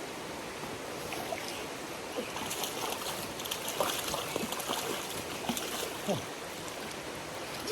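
Creek water running steadily, with a scatter of small splashes and clicks from about two to six seconds in.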